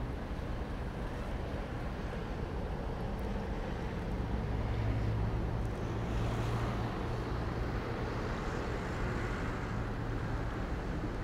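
Diesel engine of a fishing boat entering harbour, a steady low drone that swells a little in the middle as the boat passes close.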